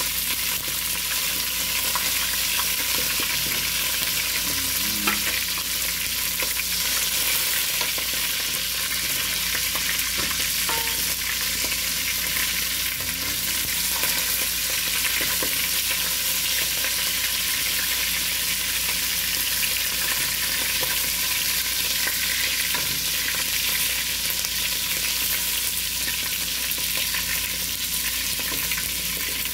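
Lamb pieces sizzling steadily as they fry in hot oil in an aluminium pot. A wooden spatula stirs them, scraping and tapping against the pot now and then.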